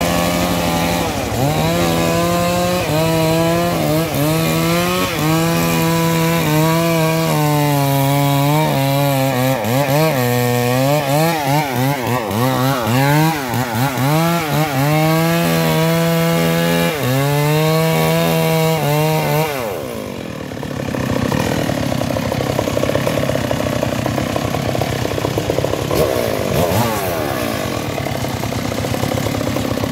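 Stihl MS381 two-stroke chainsaw cutting into a tree trunk, its engine pitch rising and falling under load. About twenty seconds in it comes off the throttle and settles to a lower, rougher idle.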